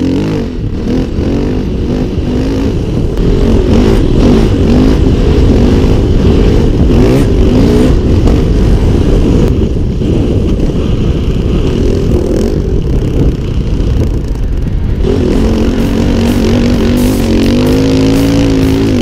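KTM 530 EXC dirtbike's single-cylinder four-stroke engine running under load while riding, its pitch rising and falling with the throttle. It holds steadier about three quarters of the way in, then climbs near the end.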